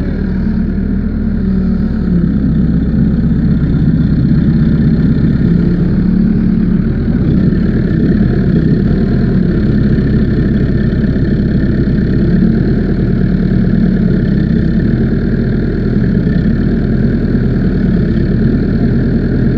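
Case backhoe loader's diesel engine running steadily at idle, growing a little louder over the first few seconds.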